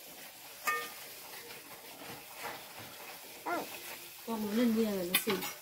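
A person's voice: a short vocal sound about three and a half seconds in, then a drawn-out, wavering vocal sound near the end. Under it is faint room hiss, with a short click about a second in.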